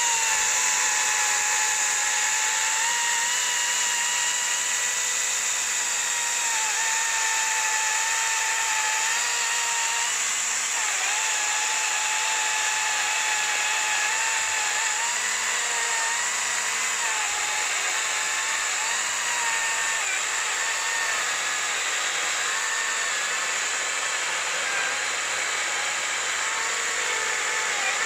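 Hychika CS40B 36 V brushless cordless chainsaw running at full speed while cutting a thick log. It gives a steady electric whine with a high chain hiss, its pitch wavering slightly as the chain loads up in the wood.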